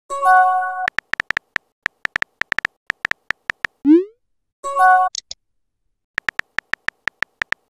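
Synthetic messaging-app sound effects: a short electronic chime, then a rapid run of keyboard tap clicks at about seven a second, and a rising swoop just before the middle. Then another short chime and a second run of tap clicks.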